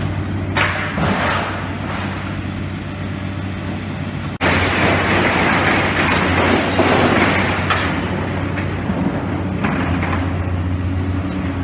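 Demolition excavator's diesel engine running steadily, with scattered knocks and clanks. About four seconds in, a louder stretch of crunching debris noise starts abruptly and dies back after a few seconds.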